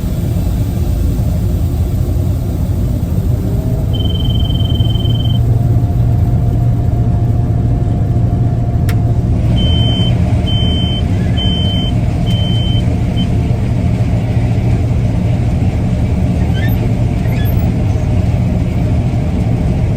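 Gleaner R62 combine running steadily while harvesting soybeans, a loud, even engine and machinery rumble heard from inside the cab. A high electronic beep sounds once, about four seconds in and lasting about a second and a half, and a run of four short beeps follows near the middle.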